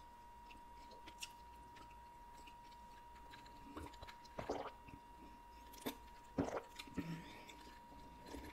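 A person drinking iced soda from a glass: faint, scattered swallowing gulps and small mouth sounds, over a faint steady high tone.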